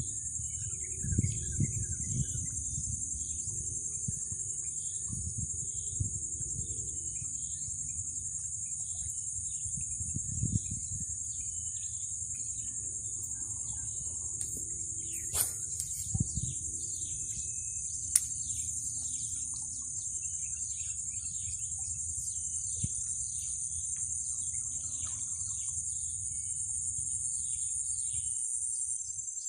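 Steady high-pitched drone of insects, with birds chirping here and there over it. A low rumble runs underneath, and a few sharp clicks stand out about halfway through.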